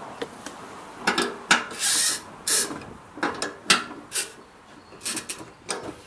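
Metal hand tools being handled and clinking together: a run of sharp clicks, clinks and short scraping rattles, busiest between about one and four seconds in.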